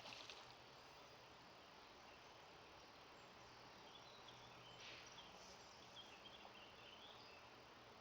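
Near silence: faint outdoor background with a low steady hum and a few faint, short high chirps in the second half.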